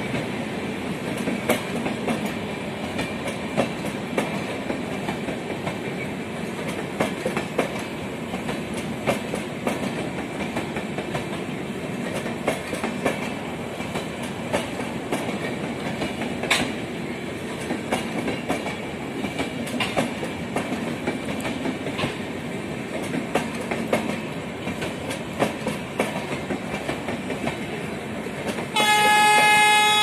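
Passenger train coaches rolling past with a steady rumble, their wheels clicking irregularly over rail joints. Near the end a locomotive horn starts a loud, steady blast.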